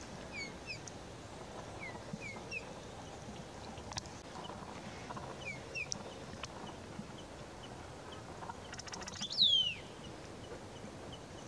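Small birds calling: a scattered run of short, high, downward-slurred chirps, and one louder, longer downslurred call about nine seconds in, over steady background noise.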